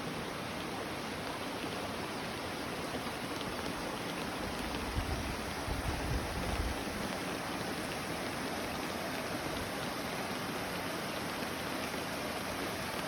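Steady hiss of rain and rushing water from a valley stream, with a brief low rumble about five seconds in.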